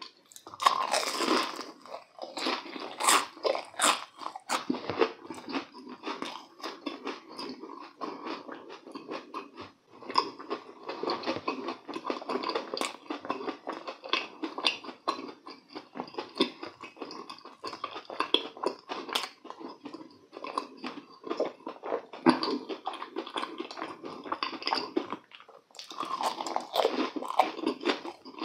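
Close-up crunching and chewing of a deep-fried, breadcrumb-coated croquette: repeated crisp bites into the fried crust and steady chewing, with a short pause near the end.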